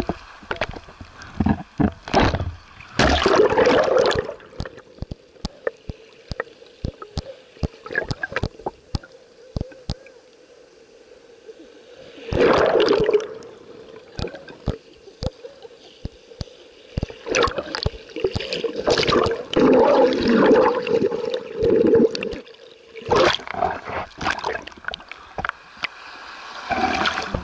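Sea water splashing and sloshing around an action camera held at the surface in shallow surf. The camera dips in and out of the water, giving muffled, gurgling stretches between louder splashes, with many short sharp clicks and knocks of water and handling against the housing.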